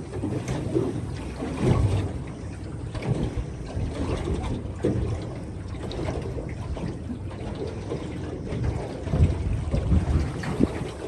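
Hull of a Poleson 16 aluminium boat running through a light chop. Water splashes and rushes along the hull, with irregular louder slaps every second or two as it meets the waves.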